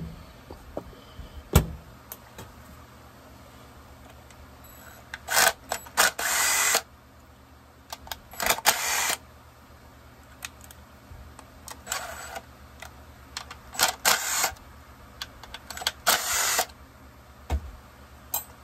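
Clicks and clinks of small parts and hand tools on a workbench during a chainsaw teardown, with five short bursts of a noisy tool, each lasting about half a second to a second and a half.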